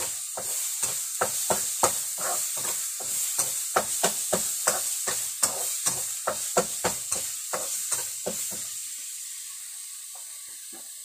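Food being stirred in a hot pan on a gas stove, a utensil scraping the pan about three times a second over a steady frying sizzle. The stirring stops about nine seconds in and only the sizzle goes on.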